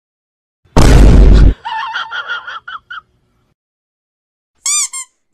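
Edited-in comedy sound effects. A loud explosion blast comes about a second in, followed by a quick run of short squeaky cries. A brief high-pitched call comes near the end.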